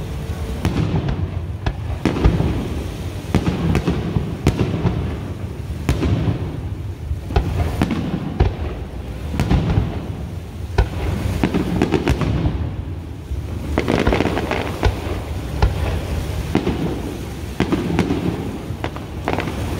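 Aerial fireworks shells bursting in quick succession: an irregular run of sharp bangs, several a second at times, over a continuous low rumble.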